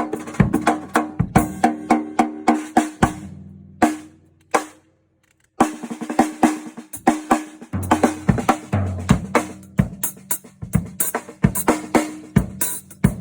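Drum kit being played, with snare, bass drum and fast fills. It stops about four seconds in for a second or so, then starts again.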